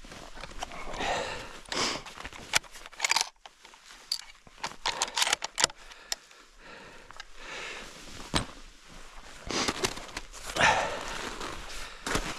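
Footsteps in snow with a person's breathing: irregular swishes of noise every second or two, with a few sharp clicks between.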